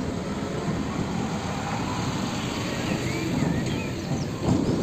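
Diesel engine of a UD Quester tractor unit running as it pulls a container trailer past, a steady low rumble.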